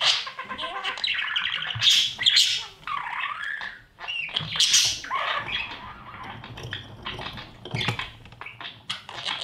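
Budgerigars chirping and squawking inside a nest box: near-continuous chattering calls with one short break about four seconds in.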